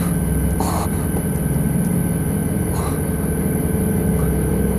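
A steady low mechanical drone, with two short splashing noises about a second in and near three seconds in, as water is poured from a plastic bottle.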